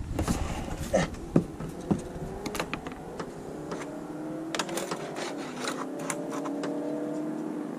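A metal chimney cap being worked onto the top of a double-wall flue pipe: scattered metal clicks and knocks. From about three seconds in there is a steady hum of several tones that drift slightly in pitch.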